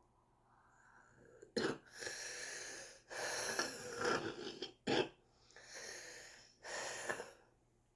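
A smoker's congested, wheezy breathing in several long noisy breaths, broken by two short coughs, one about a second and a half in and one near five seconds. It is the chest congestion that the uploader guesses is chronic bronchitis.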